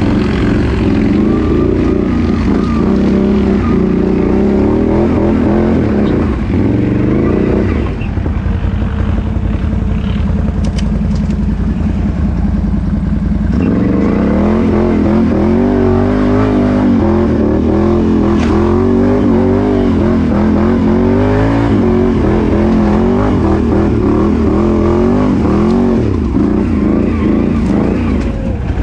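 ATV engine running under load off-road, its pitch rising and falling unevenly with the throttle. It eases back to a lower, quieter note about eight seconds in, then picks up again about halfway through and keeps surging.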